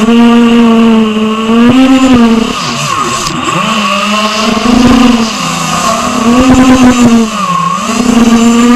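Eachine Wizard X220 racing quadcopter's brushless motors and propellers whining loudly, heard from the drone itself, the pitch swelling and dipping with the throttle, dropping lowest about three seconds in and again near the end.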